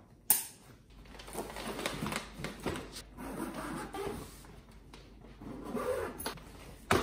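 Packing a hard-shell suitcase: a sharp knock just after the start, then irregular rustling and rubbing of fabric, straps and the plastic shell as the case is strapped and closed, with another short knock near the end.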